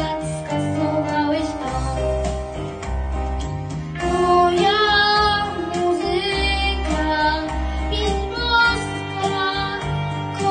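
A young girl singing a pop song solo over an instrumental backing track with a bass line; her voice grows louder about four seconds in.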